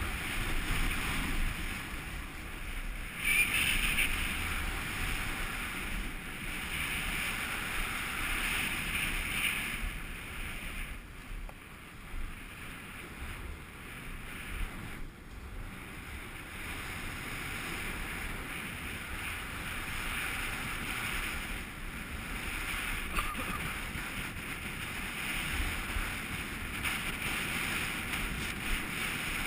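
Wind rumbling on the microphone of a camera moving fast downhill, with the hiss of snow under the rider's board or skis swelling and fading as the turns are carved through powder.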